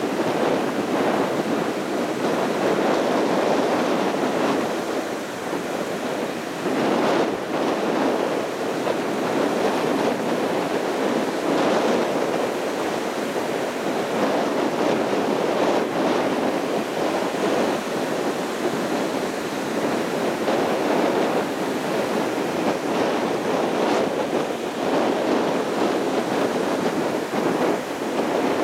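Surf breaking on a sandy beach: a steady rush of waves.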